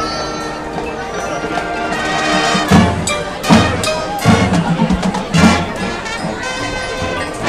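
High school marching band playing brass with drums: held chords swell, then a run of loud accented hits from about three seconds in, settling back into sustained brass near the end.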